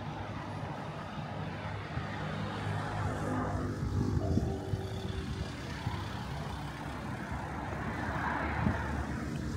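City road traffic: a steady low rumble of vehicles, with one engine passing about a third of the way in and another vehicle swelling past near the end.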